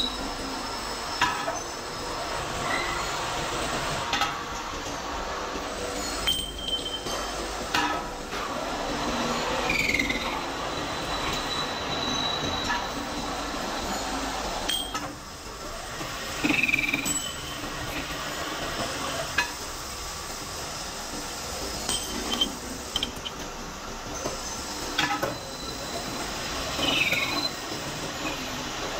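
Belt-driven metal lathe running while steel pins are turned, a steady mechanical running noise with sharp metallic clinks and three short squeals of metal on metal.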